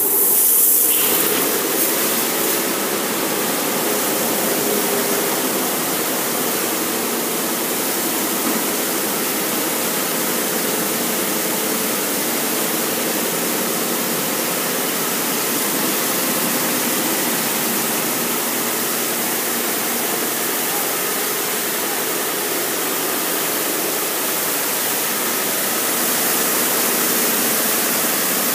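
High-pressure water jets of a vintage Mark VII automatic car wash spraying against a vehicle: a steady rushing hiss of water that comes on abruptly and holds, with a faint steady machine hum underneath.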